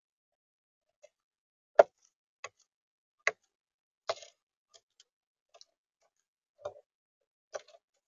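Eurasian magpie pecking seed from a Netvue Birdfy feeder's plastic tray: about ten sharp, irregular taps of its beak, the loudest just under two seconds in.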